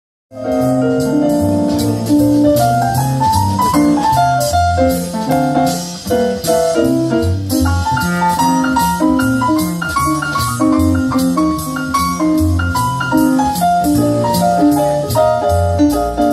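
Yamaha MOXF6 synthesizer keyboard playing a jazzy blues in F, with a moving bass line under the chords and melody, over a steady beat.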